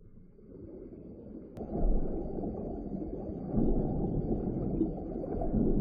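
Muffled rumble of water moving around a camera held underwater, rising over the first two seconds and then holding steady, with a single faint click about one and a half seconds in.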